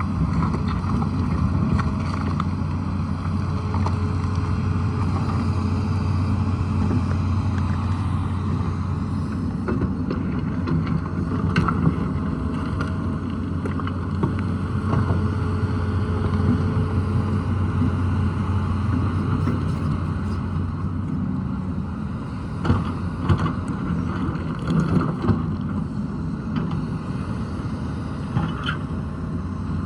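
Tata Hitachi excavator's diesel engine running steadily with a deep hum. A few sharp knocks and clanks sound over it, once about twelve seconds in, then in a cluster a little past twenty seconds, and once more near the end.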